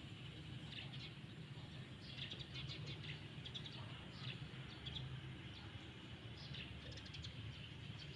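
Faint outdoor ambience: small birds chirping now and then in short high calls, over a steady low hum.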